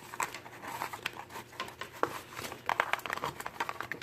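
Crinkling, rustling and small clicks of a paper planner and its cover being handled as the planner is slid into the cover and nudged into place.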